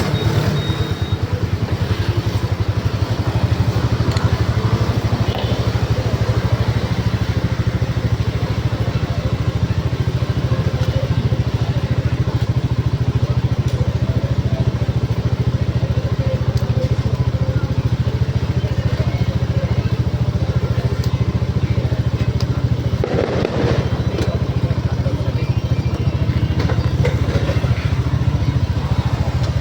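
Motorcycle engine running steadily under way, with a short noisy swell about 23 seconds in.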